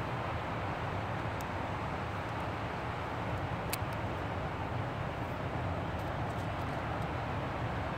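Steady wind and surf noise of a beach, with a few faint clicks as a Webley Tempest air pistol is handled and loaded with a pellet.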